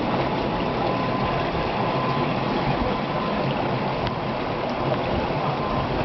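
Steady rush of moving water, with a low, even engine-like hum beneath it.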